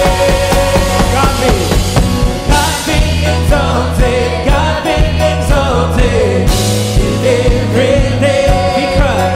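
Live contemporary worship music: a praise team singing over a band with bass and drums, with a cymbal crash about two and a half seconds in and another near six and a half.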